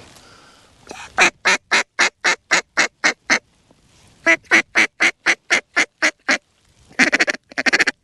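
Mallard duck call blown close by: a run of evenly spaced loud quacks, about four a second, a pause, a second run the same, then a quick rattling string of notes near the end. This is calling to work a circling flock of mallards in to the decoys.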